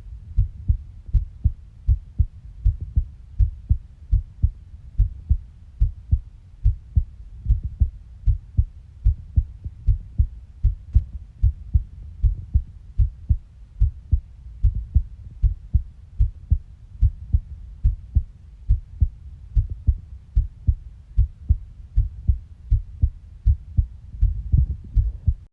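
Heartbeat: a steady rhythm of low thumps in close lub-dub pairs.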